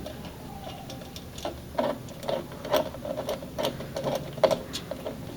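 Light clicks and taps of metal parts as the CPU cooler's mounting screws are fitted and turned, coming irregularly a few times a second and thickest in the second half.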